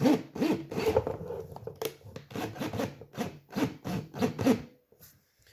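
Repeated rasping, rubbing strokes, about two or three a second, as copper wire and the drill are handled and worked; they stop about four and a half seconds in.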